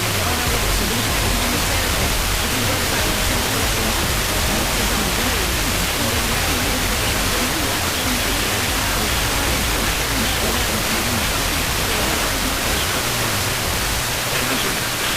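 Steady hiss of radio static with faint music beneath it: a weak broadcast signal between alerts.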